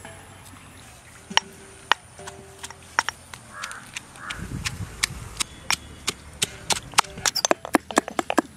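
Stone pestle pounding in a stone mortar: sharp, uneven knocks of stone on stone, coming faster and closer together over the last two seconds.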